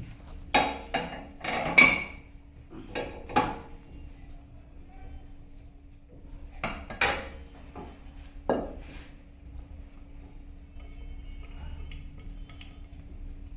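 Metal parts of a motorcycle sidecar fitting clanking and clinking as they are handled and set in place, a string of sharp knocks in the first half, then fainter clicks, over a steady low hum.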